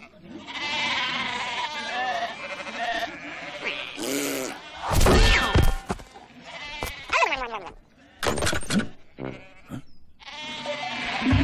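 Cartoon sheep bleating and mumbling in short wavering calls, with a heavy thump about five seconds in and a few clattering knocks after it. Music comes in near the end.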